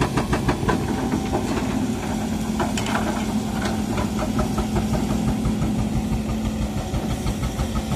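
Diesel engine of a Sumitomo SH130 crawler excavator running close by. It throbs fast and evenly in the first second, then settles into a steadier hum with a low held note.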